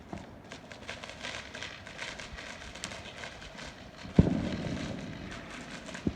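Fireworks going off: a loud bang about four seconds in whose boom rolls away over the next second or two, and a second, shorter bang near the end, over continuous crackling.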